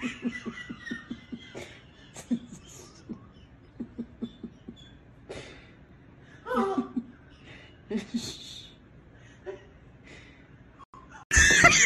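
A man's helpless laughter, mostly quiet, short breathy pulses, with louder pitched laugh bursts about six and eight seconds in. Near the end, much louder laughter cuts in abruptly.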